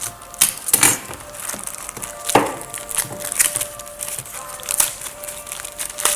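Clear plastic trading-card wrapper crinkling and crackling as it is slit with a craft knife and pulled open, the cards sliding out, with sharp crackles about half a second, one second and two and a half seconds in.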